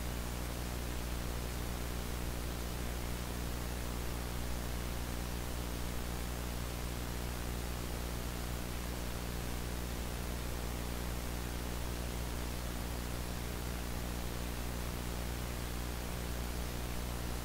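Steady hiss with a low electrical hum underneath and nothing else: the noise floor of a TV broadcast recorded through a computer capture.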